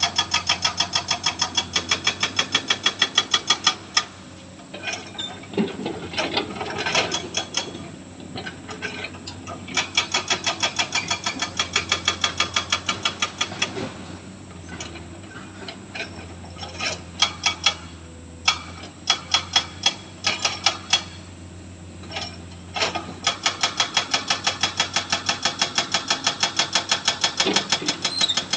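Hydraulic breaker hammering, rapid even blows about seven or eight a second in bursts of a few seconds with short pauses between, over the steady low hum of an excavator's diesel engine.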